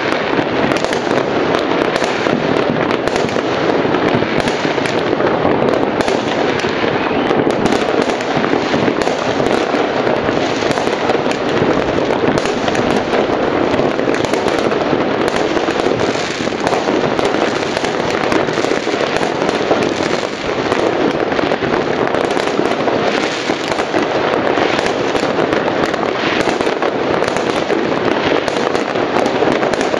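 Many fireworks and firecrackers going off together in a dense, continuous barrage of overlapping bangs and crackles, with no single blast standing out above the rest.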